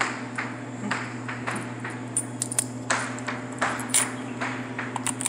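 Quarters clinking against each other as they are fished out by hand and sorted, a sharp clink about twice a second at an uneven pace, over a steady low electrical hum.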